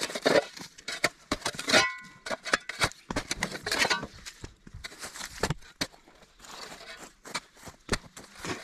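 Bricks and dry, hard-packed soil being dug out of an old raised bed: irregular knocks, clatter and scraping, with a short clink about two seconds in.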